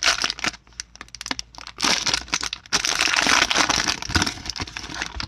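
Foil wrapper of a 2018 Topps Series 1 jumbo baseball card pack being torn open and crinkled by hand, in several spells of crackling with small crackles between.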